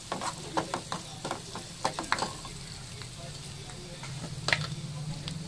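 Metal ladle scraping and clinking against a metal frying pan while chopped onions and bell peppers sizzle in oil. The clinks come thick for the first couple of seconds, with one sharper clink about four and a half seconds in.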